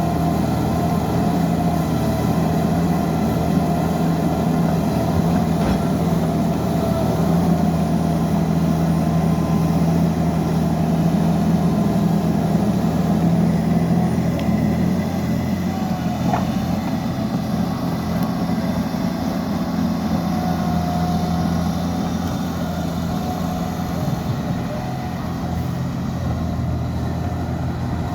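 Liebherr 754 crawler dozer's diesel engine running steadily, a little quieter in the last few seconds.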